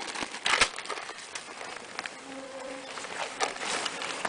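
Rustles and light knocks from close handling, loudest about half a second in, with a flying insect buzzing briefly near the microphone around the middle, where biting bugs are swarming.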